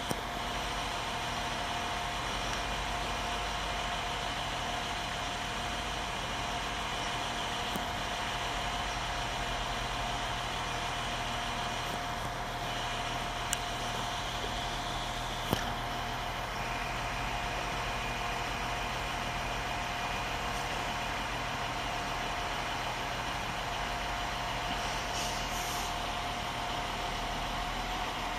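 Irish Rail 22000 Class diesel multiple unit standing with its engines idling: a steady hum with a constant whine running over it, and two brief clicks in the middle.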